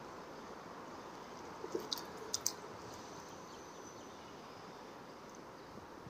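A small fish being lifted out of the river on a long pole rod: a few quick, sharp clicks and splashes about two seconds in, over a steady background hiss.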